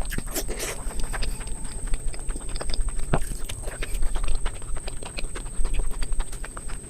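Close-miked eating: chewing with a rapid, irregular run of wet mouth clicks and smacks.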